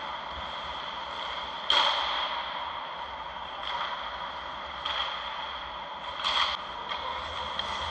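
Indoor ice-rink ambience with a steady high whine, broken by a few short scrapes of hockey skate blades on the ice. The loudest scrape comes a little under two seconds in, and two more come near the end.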